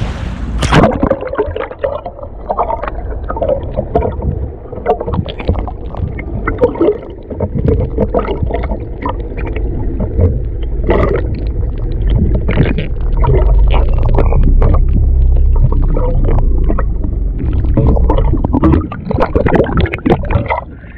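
Underwater sound: a splash about a second in, then muffled rushing and gurgling water with a low rumble and scattered knocks, heard from below the sea surface.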